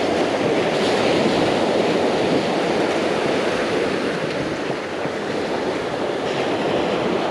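Ocean surf washing onto a beach, a steady rushing noise, with wind on the microphone.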